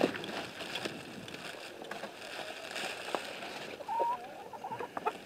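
Faint rustling and light knocks of a plastic chicken waterer being handled and lifted out of a coop, with a short pitched squeak about four seconds in.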